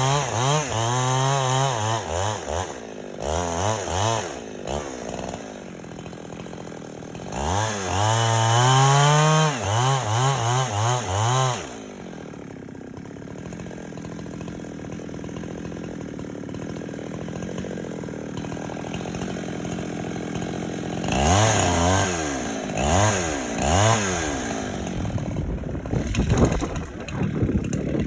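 Two-stroke chainsaw revving in repeated bursts, its pitch rising and falling with the throttle, then dropping to a quieter idle for several seconds before revving up and down again near the end.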